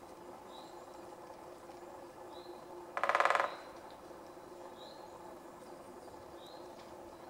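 Great spotted woodpecker drumming: one rapid roll of bill strikes on wood lasting about half a second, about three seconds in. This is the species' territorial drumming.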